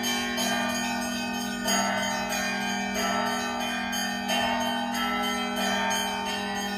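Orthodox cathedral bells of Nikolai-do being rung together: rapid strikes of small bells over a steady, held low bell tone, with a fuller stroke a little more than once a second.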